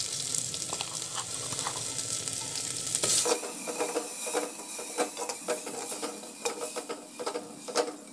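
Masala paste sizzling as it fries in oil in an earthenware clay pot (handi), with a spatula stirring and scraping against the pot. From about three seconds in, the scraping clicks come thick and fast over the steady sizzle.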